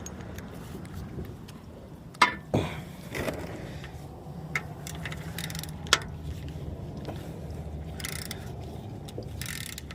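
Clinks and knocks of metal hand tools being handled, a few sharp ones scattered through, then two brief rasping sounds near the end.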